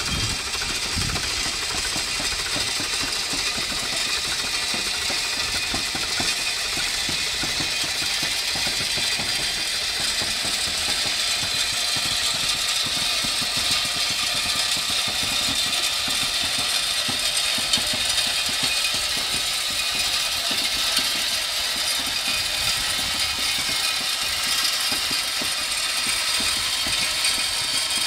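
Crushed-stone ballast pouring steadily from the bottom chute of a narrow-gauge skip wagon onto the track, a continuous gritty rattle, with mechanical rattling from the wagons.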